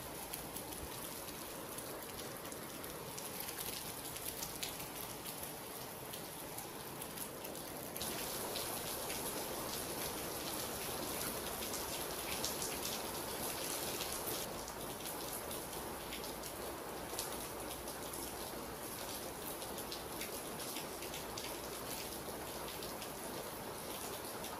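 Steady rain falling on a surface, an even hiss dotted with many distinct drop ticks. It gets abruptly louder about eight seconds in and eases back a little some six seconds later.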